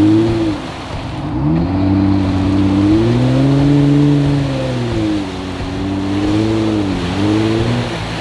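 Jeep Wrangler's engine revving up and down in repeated swells as it pushes through deep swamp mud and water, over a steady hiss of splashing.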